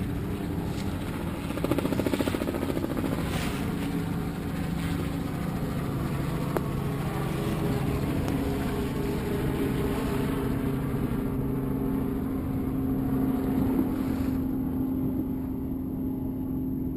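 Engine of a motorboat tender running steadily.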